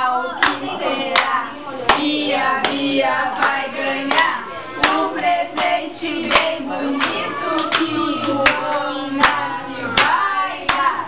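A group singing a song together, clapping along in steady time, about one clap every three-quarters of a second.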